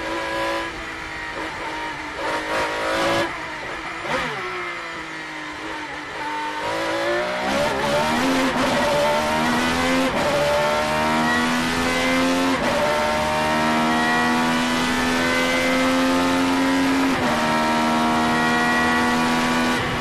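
Ferrari 333SP's 4.0-litre naturally aspirated V12 racing engine at speed. The revs fall over the first few seconds with a few quick sharp blips, then climb hard through the gears, the pitch dropping back at each of several upshifts.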